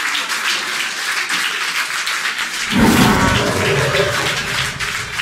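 Audience applauding steadily, a dense crackle of many hands clapping. About three seconds in, a louder, deeper rumble lasting about a second rises over the clapping.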